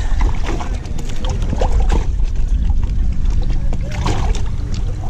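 A clear plastic weigh-in bag crinkling and rustling as bass are lifted from the boat's livewell into it. A steady low rumble runs underneath.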